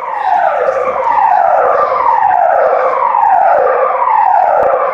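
Fire alarm sounding the German evacuation tone, a tone falling from high to low about once a second, repeating.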